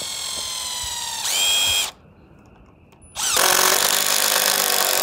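Cordless drill driving screws into a wooden frame: a steady motor whine that grows louder and rises in pitch just before it stops about two seconds in, then after a short pause a second, louder and rougher run starts about three seconds in.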